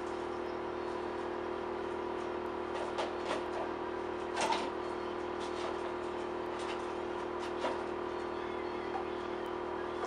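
Steady, unchanging workshop hum, with a few light knocks and clicks from hand work at the bench, the loudest about halfway through.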